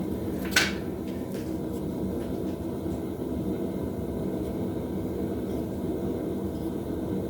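Steady low rumble and hum of a forge running, with one brief sharp sound about half a second in.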